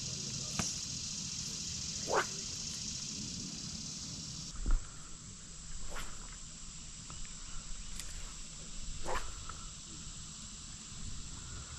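Steady high chirring of insects such as crickets, thinning abruptly about four and a half seconds in, with a few faint clicks and two brief rising swishes.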